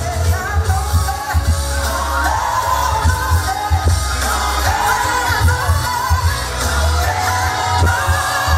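Dance-pop music played loud over a club sound system: a sung vocal melody over a heavy, pulsing bass beat.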